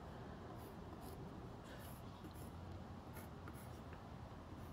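Pencil scratching on a wooden board in a series of short, faint strokes as crosses are drawn in the marked boxes, marking the parts of the bed rail to be chiselled out.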